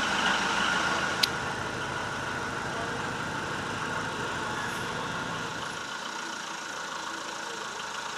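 A car running, a steady mechanical noise, with one sharp click about a second in.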